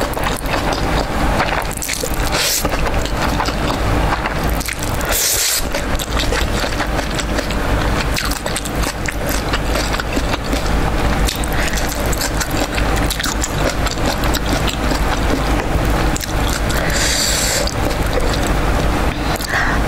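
Close-miked eating sounds: wet chewing and slurping of jjajangmyeon noodles, with a few short slurps and a longer, louder one near the end.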